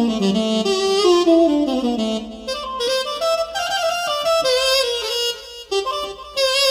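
Korg Nautilus keyboard playing a solo melody on a wind-instrument voice. It is a single line that steps between notes with bends and ornaments, in short phrases.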